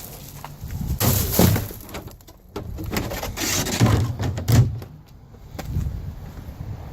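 Wrecked shoe debris being gathered up and tossed into a garbage can: scraping and rustling, with a couple of dull thumps a little past the middle.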